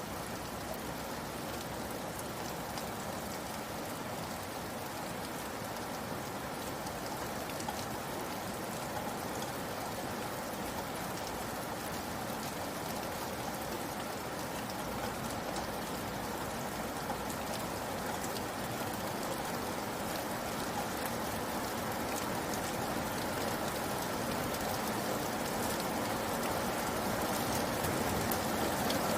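Steady rain falling: a dense, even hiss with a fine patter of individual drops, growing slightly louder toward the end.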